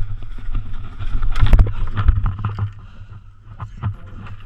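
Low rumbling wind and handling noise on a body-worn action camera's microphone as the wearer moves, with a few knocks and rustles of gear about one and a half to two and a half seconds in.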